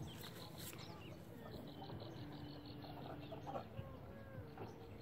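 Faint outdoor background with distant bird calls, including a quick run of high, evenly spaced chirps early on.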